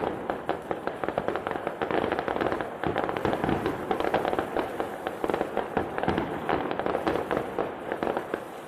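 Fireworks going off in a dense, continuous barrage of rapid crackling bangs.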